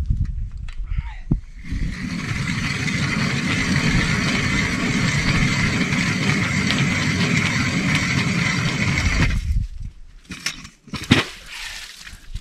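Hand-cranked ice auger boring a fishing hole through lake ice: a steady grinding of the blades cutting ice that runs for about seven seconds and stops, followed by a couple of sharp knocks.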